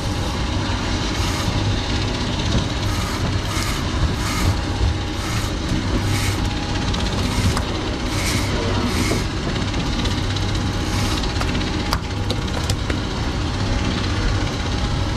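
Steady hum of idling outboard engines under wind and water noise, with a regular swishing about twice a second for the first several seconds.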